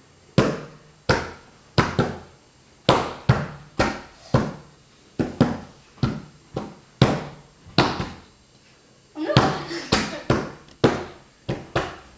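Hands slapping flat on a tabletop one after another, a sharp slap about every half second, passing the turn around the table: one slap keeps the direction, two slaps reverse it. The slaps pause for about a second just after the middle, then go on.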